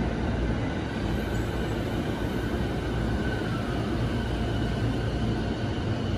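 E231-series electric commuter train pulling slowly into the station, a steady low rumble of wheels on rail with faint thin tones above it.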